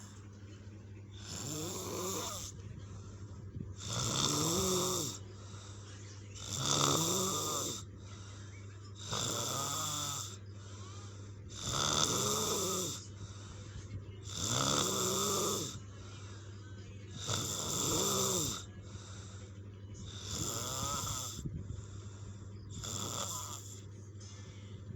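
A person snoring in a steady rhythm, about nine rasping snores, one every two to three seconds, each a breath drawn in with a rough, wavering pitch. A steady low hum runs underneath.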